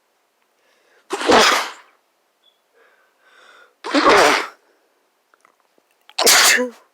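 A person sneezing three times, about two and a half seconds apart, each a short, sudden burst.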